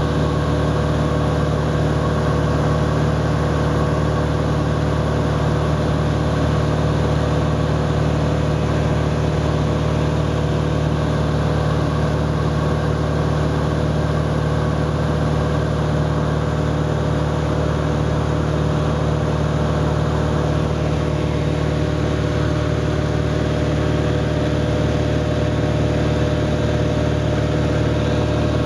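Light propeller airplane's piston engine and propeller droning steadily in cruise flight, heard from inside the cabin.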